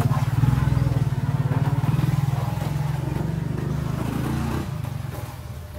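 A motor vehicle engine running with a low, pulsing drone. It is loud at first and fades away after about four and a half seconds.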